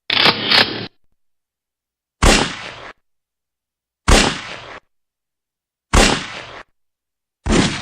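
A series of short sound effects: a quick double clack, then four sharp bangs about two seconds apart, each dying away in under a second.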